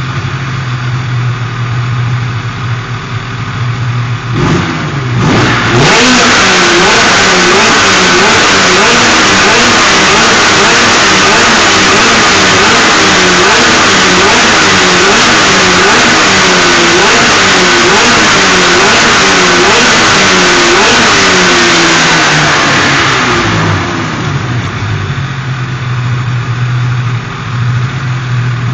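Polaris 800/600 mod two-stroke twin snowmobile engine on its first run-up after installation: idling, one short throttle blip, then revved hard again and again, its pitch rising and falling about once a second, before settling back to idle.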